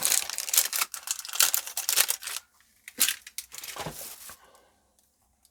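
Crinkling, rustling handling noise full of small clicks for about two and a half seconds, then a couple of short knocks before it falls quiet.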